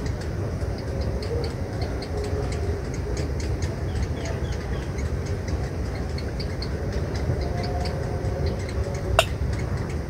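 Steady low rumble with faint, rapid high ticking and a few small chirps over it. A sharp click with a brief rising squeak comes about nine seconds in.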